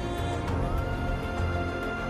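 Background music: an instrumental track of sustained, layered tones, with a high held note coming in about half a second in.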